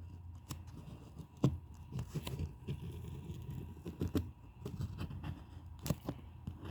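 A pen scratching as it is pressed hard to draw, with a few sharper taps and clicks of the pen and paper being handled.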